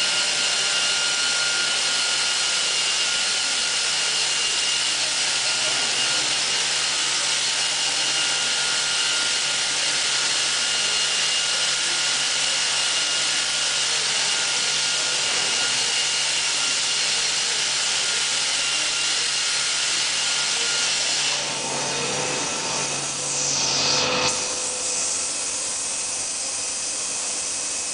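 Biesse Rover 322 CNC router machining a wooden panel: a steady, loud machine noise with several high whining tones over a low hum. About 22 seconds in the pitch sweeps, then the low hum stops and a steadier hiss remains.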